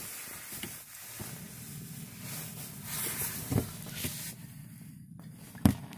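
A steady low rumble with a hiss in the middle stretch, broken by a few knocks from the phone being handled and moved around the oven, the loudest near the end.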